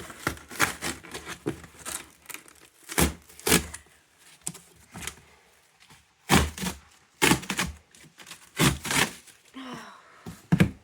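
Cardboard shipping box being torn open along its tear strip: irregular bursts of ripping and crackling, with knocks from the box being handled. The loudest rips come in clusters a few seconds apart.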